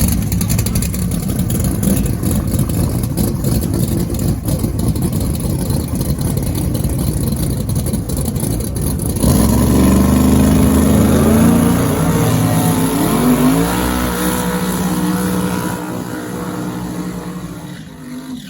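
Loud drag-race car engine sound: a rough, lumpy rumble for about nine seconds, then an engine revs up with rising pitch and gradually fades away before cutting off suddenly.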